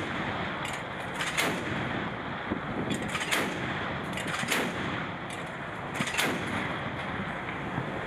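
Shipboard Mk 38 25 mm deck gun firing a string of single rounds and quick pairs, a shot every second or so. Wind rushes steadily over the microphone beneath the shots.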